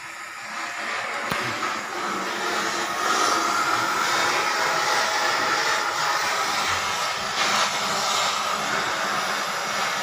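Oxy-fuel cutting torch burning with a steady hissing rush that grows louder about three seconds in. It is cutting away the lock inside an industrial washing machine to free the part so the bearing can be replaced.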